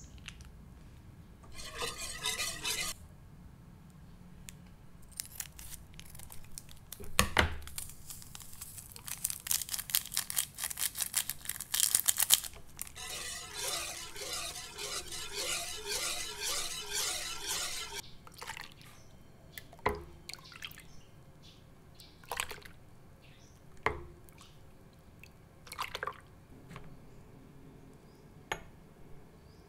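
Wire whisk stirring a thin milky pudding mixture in a metal pot, clicking rapidly against the pot's sides in runs, with the liquid sloshing. Near the end come a few separate knocks.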